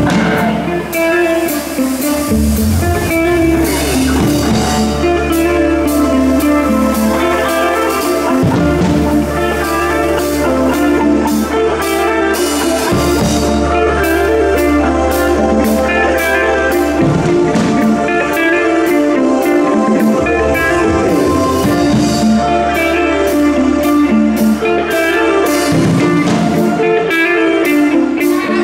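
Live rock band playing loud: electric guitar over a drum kit, with low bass notes underneath and a steady beat of drum and cymbal hits that grows busier about halfway through.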